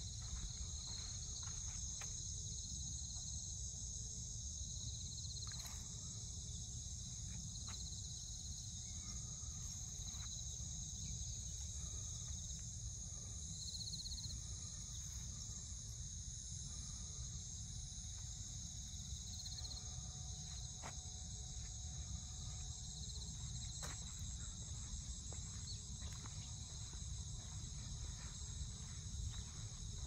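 Steady, high-pitched drone of a summer insect chorus, over a low rumble.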